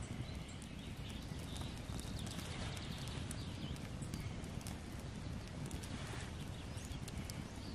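Wood fire crackling, with many small sharp pops scattered through it over a steady low rumble.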